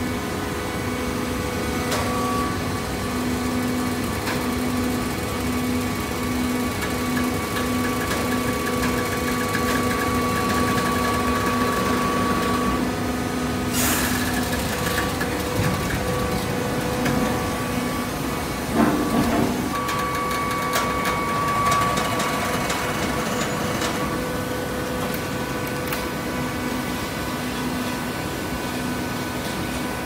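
Horizontal automatic hydraulic baler running: a steady machine hum and whine from its motors and hydraulic power pack, with a sharp clack about halfway through and a brief rattle a few seconds after.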